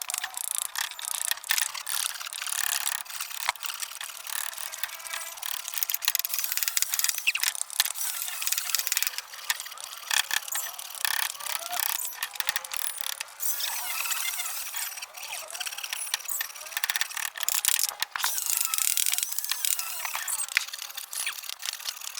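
Woodworking hand-tool work on wood: a dense, continuous run of scraping and clicking with short squeaks.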